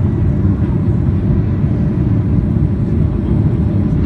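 Boeing 737-800 cabin noise at a window seat during climb-out: a steady low rumble of its CFM56 jet engines and the air streaming past the fuselage.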